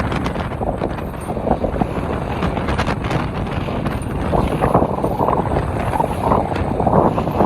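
Strong wind buffeting the microphone on a sailing yacht under way, a steady rushing noise that swells and eases slightly.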